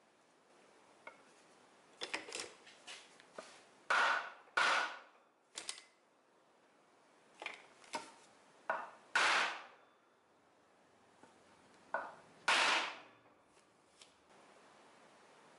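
Hammer blows on a wooden block pressed over a timing cover, driving a new front crankshaft seal into its bore on a Jeep 4.0 straight-six. About a dozen knocks come in uneven clusters, four of them much louder with a brief ring after each.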